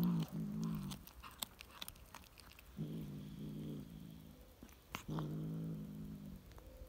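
Tabby cat growling low over a freshly caught pigeon as it eats: three drawn-out growls a couple of seconds apart, the warning growl of a cat guarding its kill. Small clicks of chewing between the growls.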